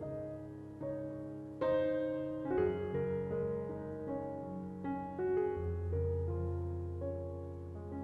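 Soft background piano music: a slow melody of single notes and chords over held bass notes.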